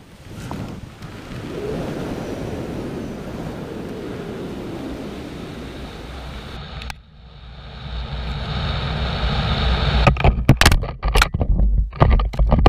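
Wind rushing over the microphone during a descent. From about ten seconds in comes a run of sharp cracks and scrapes as the paramotor crashes into tree branches.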